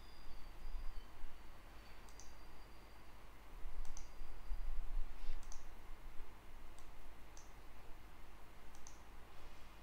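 Computer mouse clicking: about seven separate, sharp clicks spaced irregularly, while a digital whiteboard drawing is edited.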